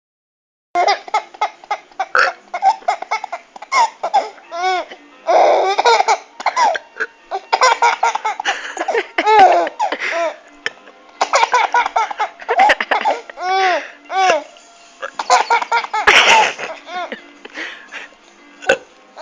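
A baby laughing in repeated fits, each a run of short, high, rising-and-falling giggles that breaks off and starts again every few seconds.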